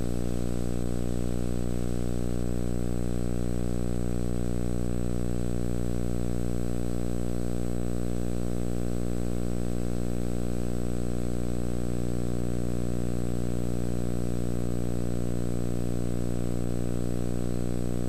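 Steady low electrical buzz with many overtones, unchanging through the fade to black and the end card: hum on an old videotape soundtrack.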